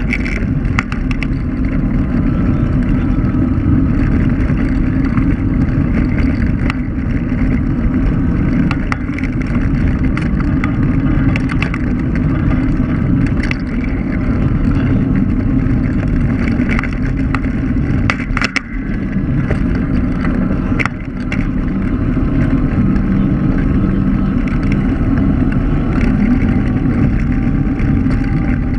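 Electric scooter rolling over asphalt, heard from a camera mounted low on it: a loud, steady rumble of wind and road noise, with scattered small clicks and rattles and a brief dip about two-thirds of the way through.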